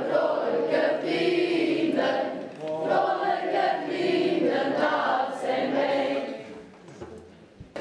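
A group of students singing together in chorus, dying away near the end.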